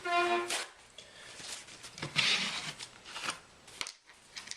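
Small clicks of handling and a brief rubbing hiss about two seconds in, as the phone's opened frame is handled and wiped down. A short hum of a voice at the very start.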